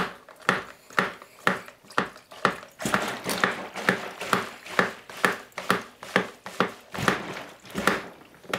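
Plunger mixer of a Rubbermaid Servin Saver plastic mixing pitcher pumped up and down through two litres of water, a swishing churn about twice a second, stirring Crystal Light powder into the water.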